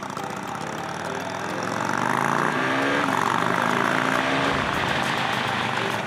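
KTM RC sport bike's single-cylinder engine pulling away and accelerating, its pitch rising and getting louder about two seconds in, with wind noise from riding.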